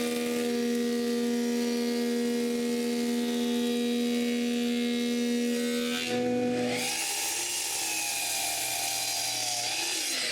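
A power woodworking tool running with a steady whine while basswood stock is prepared. About six seconds in the sound changes and its pitch wavers and glides.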